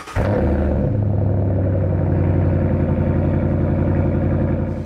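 Ram 1500's Hemi V8 catching and running loud through an exhaust with the muffler removed. It steps up to a higher idle about a second in, then holds steady until it cuts off near the end.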